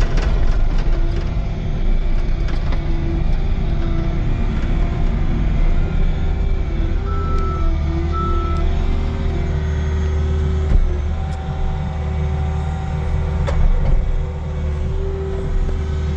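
Engine of a snow-clearing machine with a hydraulic front blade, running steadily under load as it pushes snow, heard from inside its cab. A steady whine sits over a deep drone.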